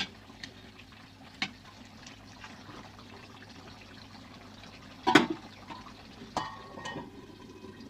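Chicken cooking in a pot over a low gas flame, with a soft steady bubbling. A few light clicks come through it, a louder short knock about five seconds in, and a brief metallic ring a second later.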